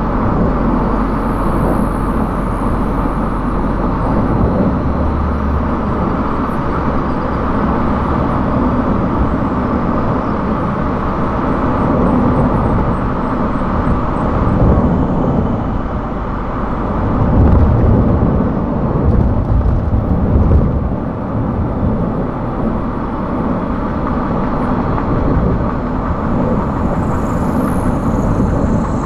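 Steady road noise of a car being driven at speed: tyres on the road and the engine running. The low rumble swells a little over a few seconds past the middle.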